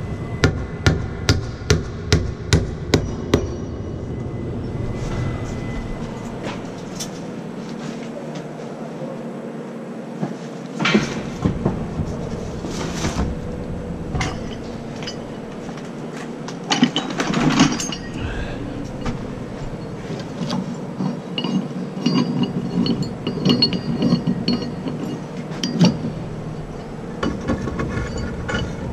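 Hammer driving nails into wooden formwork boards: a quick run of about seven blows, roughly two a second, in the first few seconds. Scattered knocks and clinks of the work follow.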